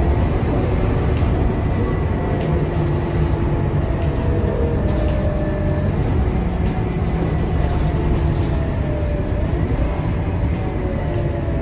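Inside the cabin of a Scania K230UB city bus on the move: the rear-mounted diesel engine and drivetrain drone steadily over tyre and road noise, the engine's pitch rising and falling slowly as the bus changes speed. Light rattles and clicks from the body and fittings are heard here and there.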